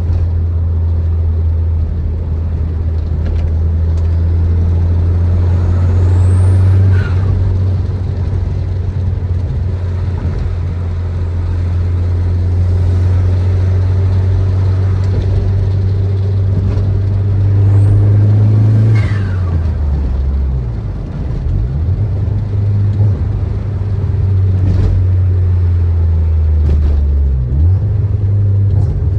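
Tuned Audi A3 1.8T 20V turbocharged four-cylinder under way: a steady low exhaust drone, with a high turbo whistle rising twice, about a fifth of the way in and again near two-thirds. After the second rise the engine's pitch drops and wavers, and a few sharp clicks come near the end.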